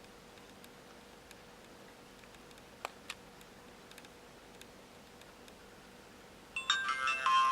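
Two faint clicks about three seconds in, then near the end the car DVR's electronic power-on chime: a quick run of beeping tones ending on a held tone as the dashcam starts up.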